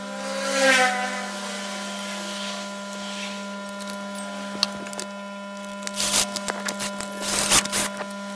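Hands handling wires and parts inside a CRT television chassis, with a cluster of clicks and rubbing about six to eight seconds in, over a steady electrical hum. A brief voice-like sound comes in the first second.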